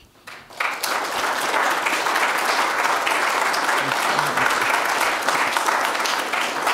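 Audience applauding, starting about half a second in and keeping up a steady, even clapping.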